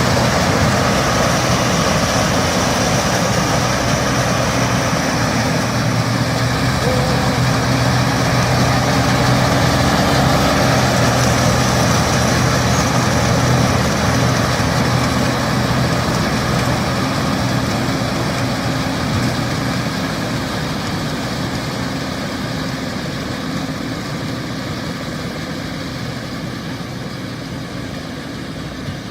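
Combine harvester running steadily in a rice field, a continuous heavy engine drone with a low hum and mechanical clatter, growing gradually quieter over the second half.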